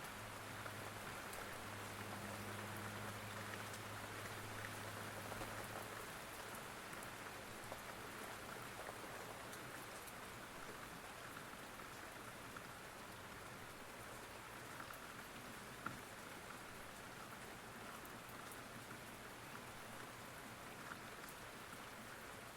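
Steady rain falling, with a low hum underneath for the first six seconds or so.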